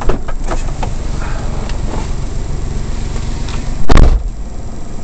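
Inside the cab of a Suzuki Carry kei truck with the engine idling: a few clicks and knocks of someone getting out, then the door shutting with a loud thump about four seconds in.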